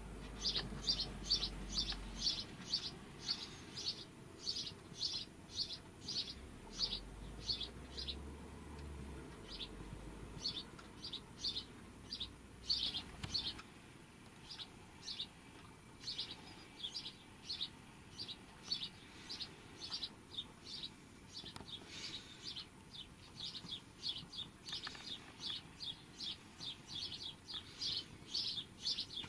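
A small bird chirping over and over, short high chirps at about three a second with a few brief pauses, over a faint low rumble.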